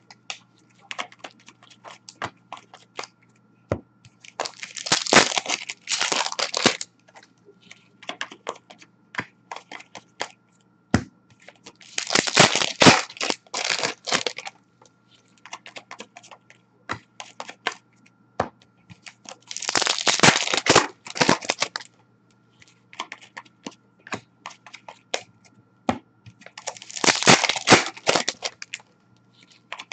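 Foil wrappers of 2019-20 Upper Deck Series 1 hockey card packs being torn open and crinkled, in four loud crackling bursts about seven seconds apart, with lighter clicks and rustles of cards being handled between them.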